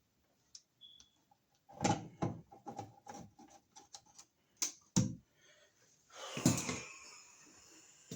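Receptacle cover plate being fitted over the outlet and screwed down: a series of clicks and knocks with small ticks between, the loudest about two, five and six and a half seconds in.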